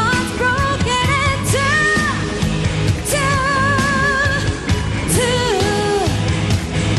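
Female pop singer belting a melody live over a full band, with long held high notes sung with vibrato. The longest comes about three seconds in.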